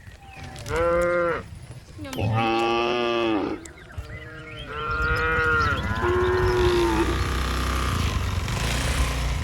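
Cattle mooing: about five calls of differing pitch in the first seven seconds, each a held tone that bends down at its end. A steady low rumble follows.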